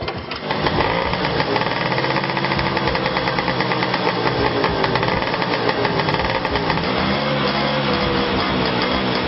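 A vintage kick-start scooter's engine catches about half a second in and runs with a rapid, even firing beat, its revs rising and falling as the throttle is worked.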